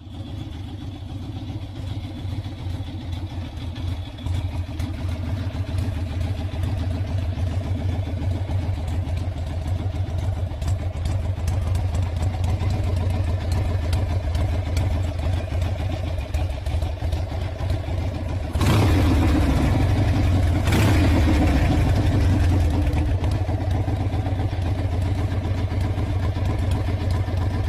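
1981 Harley-Davidson Ironhead Sportster's air-cooled V-twin engine running at idle, then revved twice in quick succession about two-thirds of the way through before settling back.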